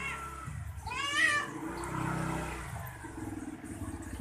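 A cat meows twice, once at the very start and again about a second in, over a motorcycle engine running low that swells around the middle and then settles into an even idle.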